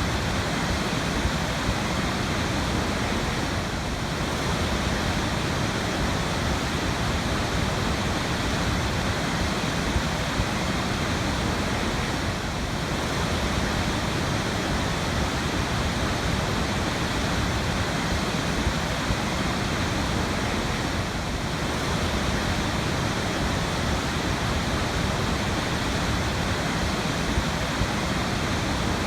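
Waterfall pouring steadily: a constant, even rush of falling water with no breaks.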